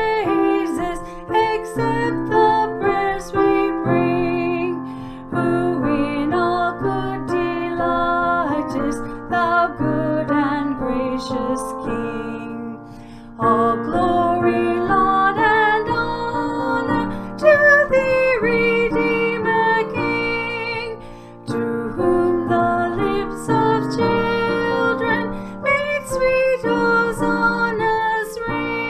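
A woman sings a hymn with vibrato to her own piano accompaniment. The singing pauses briefly twice, about halfway through and again a little later.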